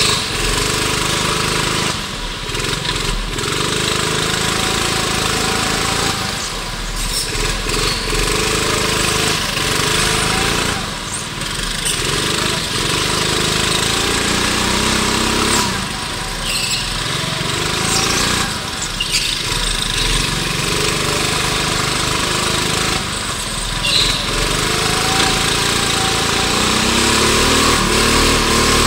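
Onboard sound of a go-kart's small engine, revving up along the straights and dropping off into the corners again and again, over a steady rushing noise.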